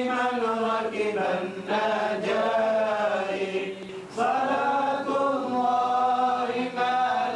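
A voice chanting in long, drawn-out notes that bend and waver in pitch, over a steady low held tone. There is a short break between phrases about four seconds in.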